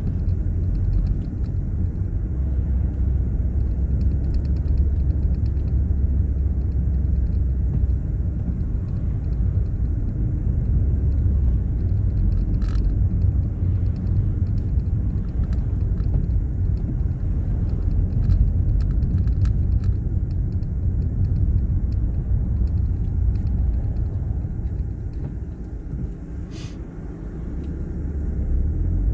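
Ford Fiesta Mk7 being driven, heard from inside the cabin: a steady low rumble of engine and road noise, getting quieter for a few seconds near the end before picking up again.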